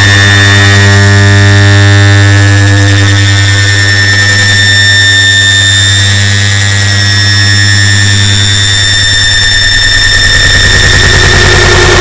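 Air conditioner start-up sound layered on itself many times into a loud, distorted wall of noise: a steady low hum with several high whining tones on top.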